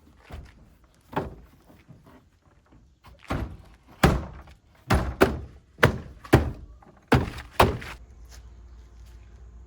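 A series of heavy thunks, about ten, irregular and some in quick pairs, stopping about eight seconds in, after which a low steady hum remains.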